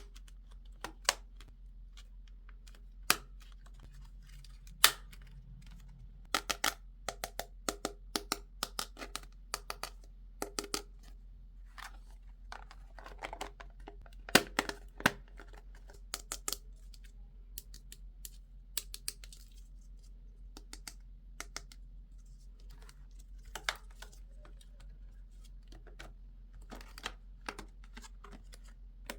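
Small plastic toy pieces and packaging being handled: scattered sharp clicks and taps, some in quick runs, with a little soft rustling.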